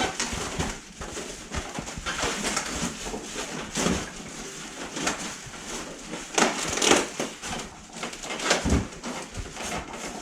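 Packaging being handled and unpacked: irregular rustling and crinkling of plastic and cardboard, loudest about six and a half seconds in.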